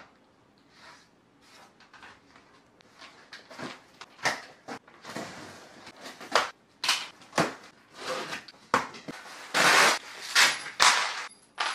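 A cardboard shipping box being handled and cut open: a run of scrapes, rustles and tearing sounds that grows louder, with the longest and loudest rip of cardboard about ten seconds in.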